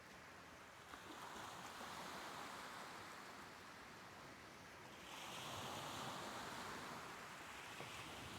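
Soft ocean waves washing in. The surf swells about a second in and again, louder and brighter, about five seconds in.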